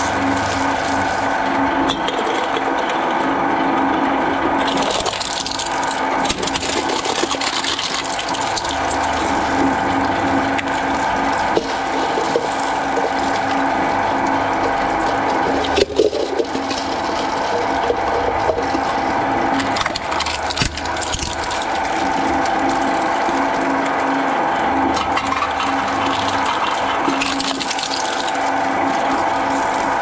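Twin-shaft shredder running with a steady motor hum while its steel cutter discs crunch through pineapple scraps and a small plastic bottle, with a sharp crack about sixteen seconds in.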